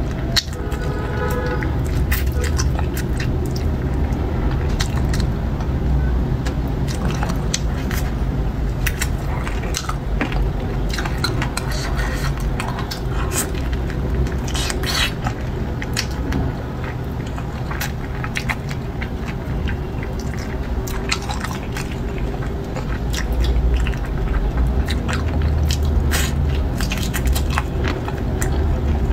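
Close-miked eating of chicken feet in chili sauce: wet chewing, sucking and many small sharp clicks as the skin is gnawed off the bones, over a steady low rumble.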